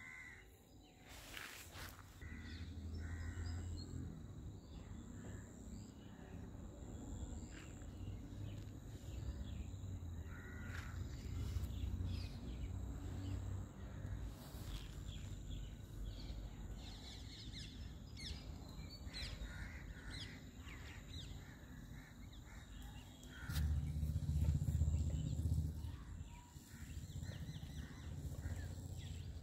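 Outdoor ambience: birds calling here and there over a low rumble, which swells for a couple of seconds near the end.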